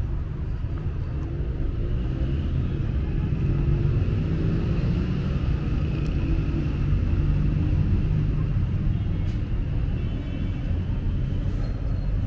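City street at night: a steady rumble of road traffic passing close by, with no single sound standing out.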